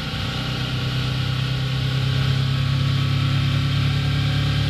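Yamaha R3's parallel-twin engine running at a steady pitch while the motorcycle cruises, with a steady hiss over it.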